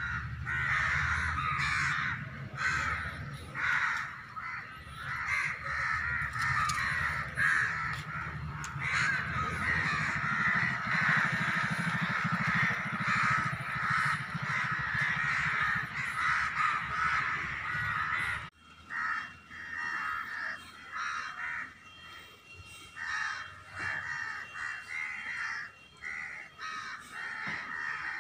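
A dense, continuous chorus of many bird calls. A low hum under it stops abruptly about two-thirds of the way in, and the calls carry on thinner over a faint steady high tone.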